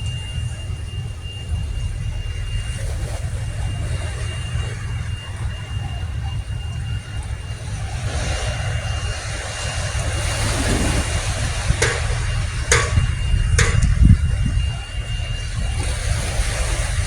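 Road traffic noise: a steady low rumble of vehicles, swelling about halfway through as one passes, with three sharp clicks about a second apart shortly after.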